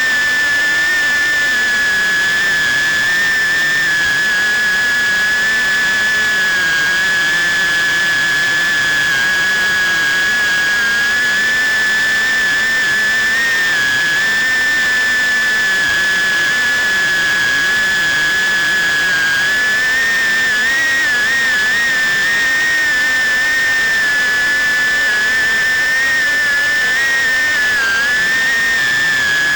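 FPV quadcopter's brushless motors and propellers whining at a steady high pitch, wavering briefly a little past the middle and dipping once near the end as the throttle shifts.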